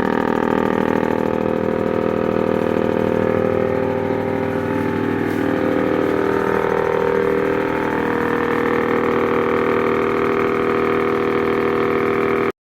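Chaff cutter running steadily with no fodder going through it, a constant machine hum made of several steady tones. It cuts off suddenly near the end.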